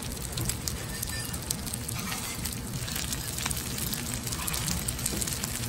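Fried rice with chives and onion sizzling on a hot cast-iron griddle pan: a steady hiss with many small crackles.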